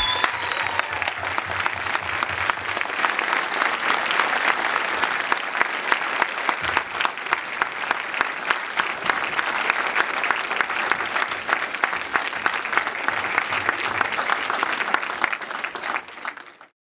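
Audience applauding: a dense, steady clatter of many hands clapping, which dies away quickly near the end.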